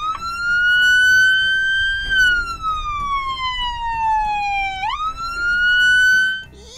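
Loud electronic police siren from the Ford police car's front-mounted siren speaker, sounding a wail: the pitch rises for about two seconds, slides slowly down for nearly three, climbs quickly again and holds, then cuts off near the end.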